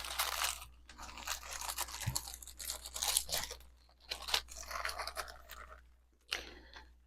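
Small plastic jewelry baggie crinkling and rustling as it is handled, in irregular bursts with short pauses.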